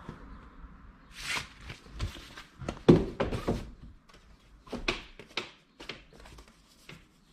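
A series of irregular knocks and thumps, the loudest about three seconds in, then a few lighter clicks.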